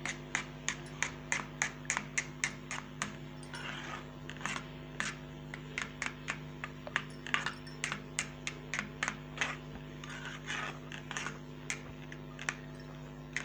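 Plastic spoon stirring thick custard in a stainless steel bowl, knocking and scraping against the metal in quick, irregular clicks, about three or four a second, over a steady low hum.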